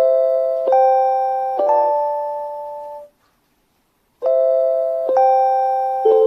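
JR Hokkaido's guidance chime for blind passengers playing its electronic bell-tone tune: notes struck about a second apart, each ringing and fading. Halfway through there is a silence of about a second, then the tune starts again.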